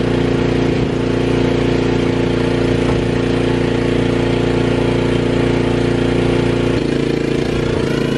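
Engine running steadily under load while the roll-off trailer's hydraulics winch a dumpster up onto the rail; its note shifts about seven seconds in.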